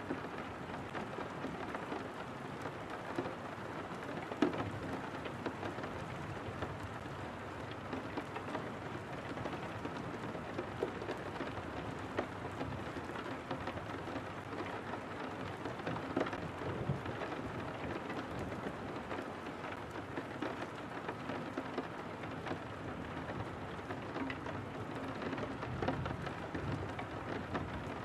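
Steady rain on a window pane: a constant hiss with many small, sharp drop taps scattered through it, one louder tap about four seconds in.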